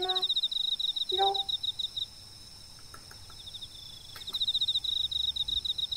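A cat gives two short meows, one right at the start and another about a second in. Under them an insect trills: a fast, even, high-pitched pulsing that stops about two seconds in and starts again about two seconds later.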